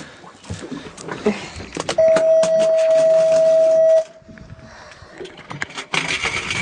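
A loud, steady electronic beep at a single pitch, lasting about two seconds from about two seconds in, amid scattered clicks and knocks.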